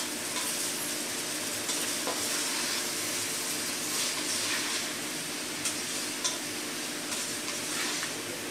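Fusilli pasta being stirred through a sizzling sauce in a hot pot, with a steady hiss throughout. The spoon knocks lightly against the pot a few times.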